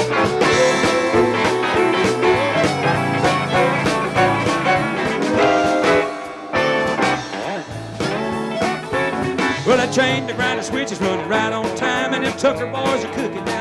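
Live country-rock band playing an instrumental passage with electric guitars, fiddle and drum kit. The volume drops briefly about six seconds in.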